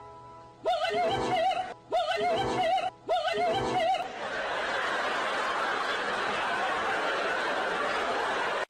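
Dubbed-in comedy sound: a warbling, wavering voice-like tone repeated three times, then a steady hiss-like noise.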